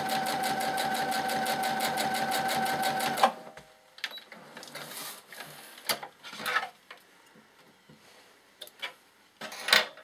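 Electric domestic sewing machine stitching forward at a steady speed, a motor whine with rapid, even needle strokes, that stops abruptly about three seconds in. After that come a few faint clicks and rustles as the fabric is taken out from under the presser foot.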